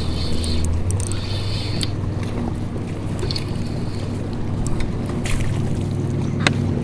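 A boat motor hums steadily at a low pitch, its note shifting slightly about a second in, with a single sharp click near the end.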